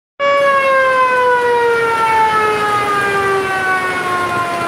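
Memorial siren sounded for the anniversary of the 2009 Padang earthquake. It begins abruptly and holds one long, loud tone whose pitch sinks slowly and steadily.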